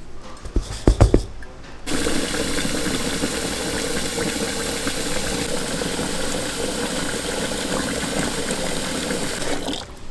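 A few knocks, then tap water running steadily into a metal pot of small grains, stopping near the end.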